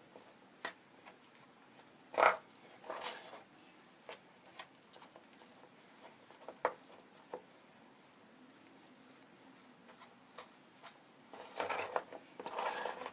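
Thick rice paste being mixed with spices in a bowl: scattered light clicks and knocks, with short bursts of scraping and squelching about two seconds in and again near the end.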